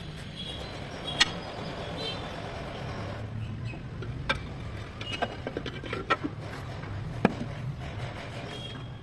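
A vehicle engine running steadily with a low rumble, cut by several sharp clicks or knocks, the loudest about a second in and near the end.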